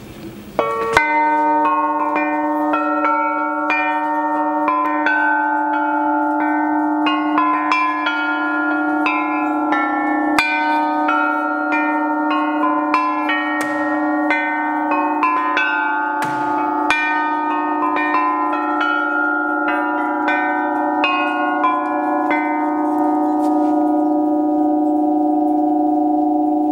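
Set of hanging flat metal bells, shaped by computer design to set their timbre and tuned to a chromatic scale, struck with mallets to play a tune. The notes overlap and ring on, and the playing starts about a second in.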